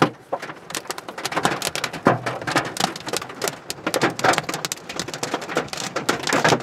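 Hailstones pelting a car's roof and windshield, heard from inside the car: a dense, irregular clatter of hard impacts.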